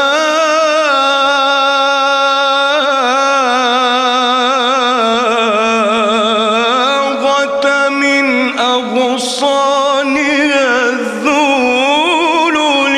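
A solo male voice chanting an Egyptian Islamic ibtihal (devotional supplication), drawing out one long melismatic phrase with rapid wavering ornaments on held notes.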